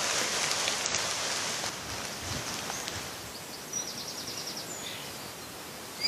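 Steady hiss of rain picked up by a trail camera's microphone, fading slightly. A faint, brief, rapid high ticking comes a little past halfway.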